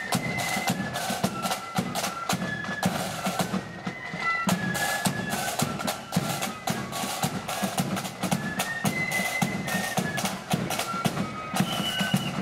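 Marching flute band playing a tune, the flutes carrying a high melody over rapid snare drumming.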